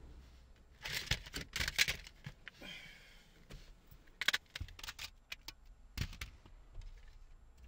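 Plastic CD jewel cases clicking and clattering as they are sorted through by hand, with a brief scrape near the middle.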